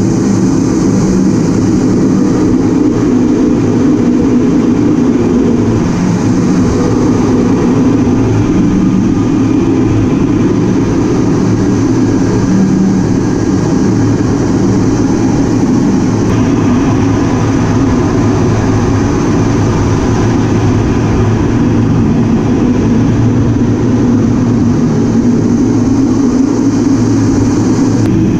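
Cockpit noise inside a flying A-10 Thunderbolt II: its twin turbofan engines and the airflow over the canopy make a steady, loud low drone with a steady hum, unchanging throughout the maneuvers.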